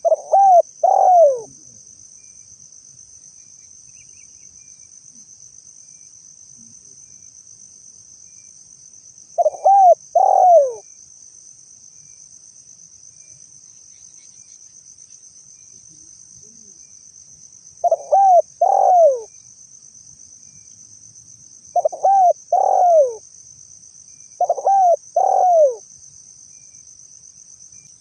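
Spotted dove (tekukur) cooing: five short phrases of a few hooting coos, each coo rising then falling, separated by pauses of a few seconds. A steady high insect buzz runs underneath.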